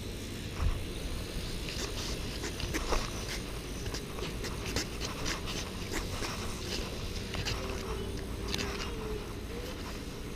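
Wind rumbling on the microphone of a GoPro strapped to a walking small child, with scattered light clicks and rustles from her steps and movement against the camera.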